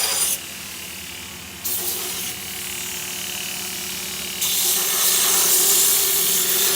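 A power tool running steadily with a high hiss, in several joined stretches whose loudness changes abruptly, the loudest near the end.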